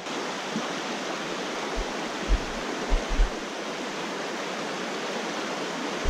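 Shallow mountain creek rushing over rocks in riffles: a steady, even rush of water. A few short low thumps sound around the middle.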